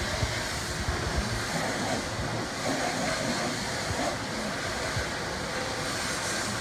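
Impact wrench running steadily as it drives a double-nutted threaded keel bolt into a sailboat keel.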